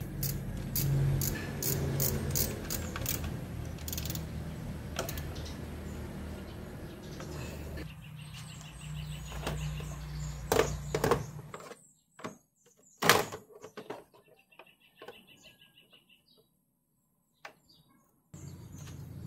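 Scattered clicks and knocks of hand tools on metal as a Nissan Almera's intake manifold is refitted, over a steady low hum that drops out about twelve seconds in. After that it is nearly quiet, with a few sharp knocks, one of them loud.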